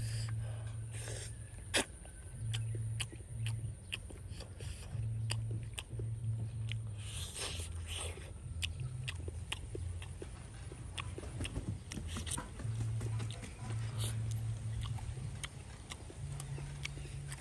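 Eating sounds: cooked eel being chewed and bitten into, with many short clicks throughout, over a low hum that comes and goes.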